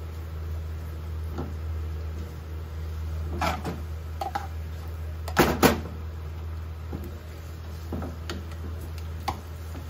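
Stir-frying in a frying pan on a gas hob: a utensil knocking and scraping in the pan as it is stirred and tossed, a few scattered knocks with the loudest two close together about five and a half seconds in, over a steady low hum.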